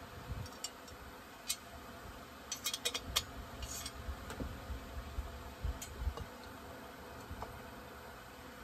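Small clicks and taps of plastic and metal chainsaw parts being handled and fitted during assembly, with a quick cluster of them around three seconds in and a short scrape just after. Under them runs a faint steady hum.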